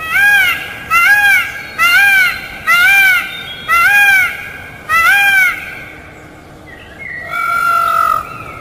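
Peacock calling: a series of six loud, arched, nasal calls at about one a second, then a short pause and one longer, flatter call near the end.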